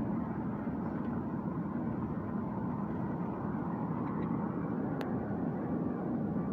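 Steady road and engine noise of a vehicle driving, heard from inside the cab, with one faint click about five seconds in.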